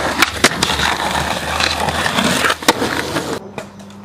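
Skateboard wheels rolling on pavement, with a few sharp clacks of the board. The rolling stops suddenly about three and a half seconds in.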